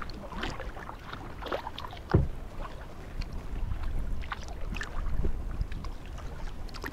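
Kayak paddling on calm water: light splashes and drips from the paddle, with one sharper knock about two seconds in, over a low wind rumble on the microphone.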